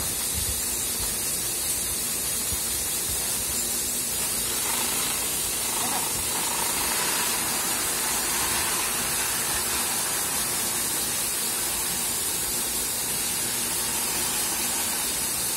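Grain pouring steadily from a pipe spout into a woven plastic sack: a continuous hissing rush, with a faint low hum underneath.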